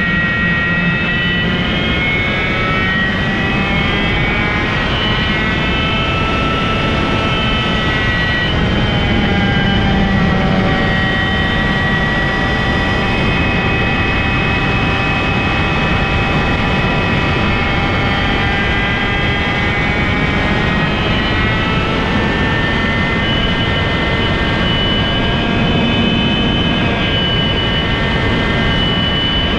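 IAME KA100 two-stroke kart engine running at racing revs, its pitch falling for several seconds as it slows for a corner, then climbing steadily for about ten seconds on the exit, dipping again past the two-thirds mark and rising once more. Wind rush on the mic runs underneath.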